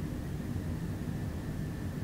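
Steady rumble of a Boeing 767's jet engines heard inside the passenger cabin, with a faint high whine held at one pitch.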